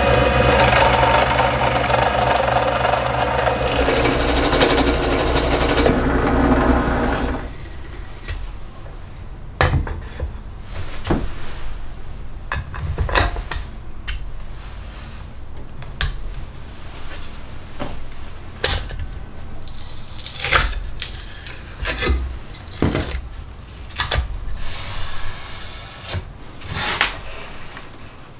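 Benchtop drill press running and boring through a wooden strip; the motor hum and drilling noise stop about seven seconds in. After that come scattered knocks and clicks of wooden strips and hardware being handled and fitted together.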